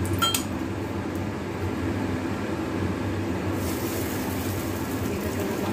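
Stretched parotta dough laid onto a hot, oiled iron tawa, sizzling briefly about three and a half seconds in, over a steady low rumble. A light clink comes near the start.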